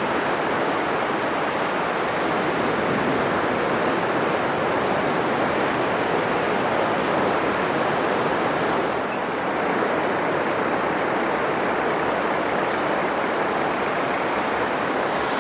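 Atlantic surf breaking on a sandy beach: a steady, loud rush of waves, easing slightly about nine seconds in.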